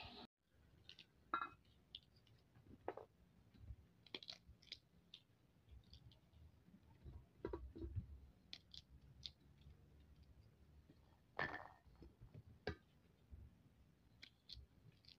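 Faint, scattered clicks and snaps of fresh green pea pods being split open by hand, a somewhat louder snap about three-quarters of the way through.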